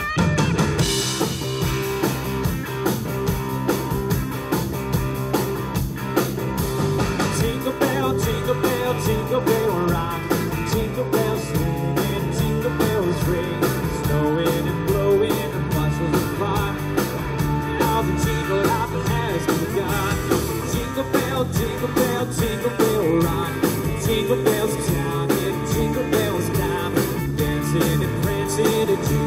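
Live band playing: electric guitar and drum kit with a steady beat, and a man singing into a microphone.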